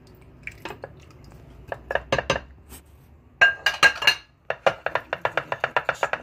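A spoon clinking and scraping against a bowl and a glass baking dish as sauce is poured and scraped out: a few scattered clinks, a cluster of loud ringing clinks a little past halfway, then a fast even run of light taps, several a second.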